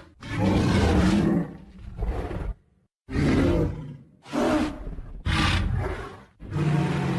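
Monster roar sound effects for an animated Godzilla: a string of about six separate roars, each a second or less, with a brief silent break about three seconds in.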